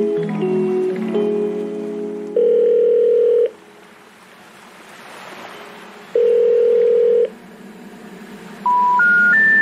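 A short stretch of music gives way to telephone line tones: a steady tone sounds twice, each for about a second, with a gap of several seconds between. Near the end come three short beeps, each higher than the last, like the special information tone that comes before a recorded 'number not reachable' message.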